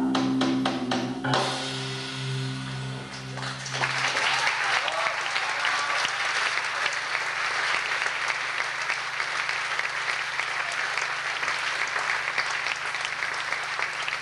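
A live band finishes a song with a quick run of drum hits and sustained notes that die away about four seconds in; the audience then applauds.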